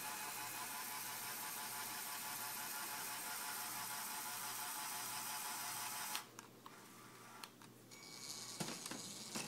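Small Lego electric motor and plastic gears whirring steadily as they turn a Lego train turntable, cutting off suddenly about six seconds in; a few faint clicks follow.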